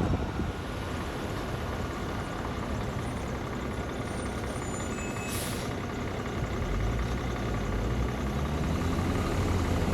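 Big-rig truck engine running with a steady low rumble that grows louder in the second half, with a brief hiss of air about halfway through.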